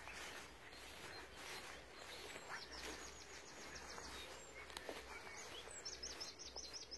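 A small songbird singing two quick runs of high, rapidly repeated notes, about eight a second: one about three seconds in and a shorter one near the end.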